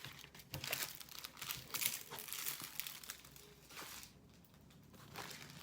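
Plastic packaging crinkling as it is handled by hand, in irregular bursts that ease off after about four seconds, with one more brief rustle near the end.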